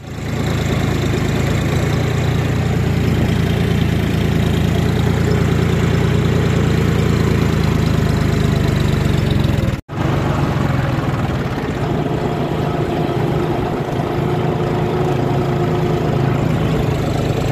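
John Deere 5050D tractor's three-cylinder diesel engine running steadily under load while pulling a plough, heard from the driver's seat. The sound breaks off for a moment about ten seconds in.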